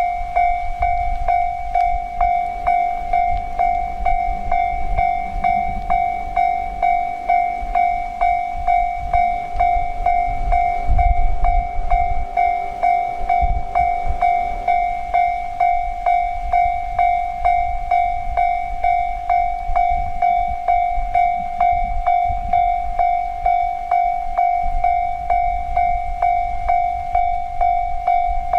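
Japanese railroad crossing warning bell ringing its steady "kan-kan" at one pitch, about two strikes a second, meaning the crossing is active and a train is due. A low rumble runs underneath, swelling about eleven seconds in.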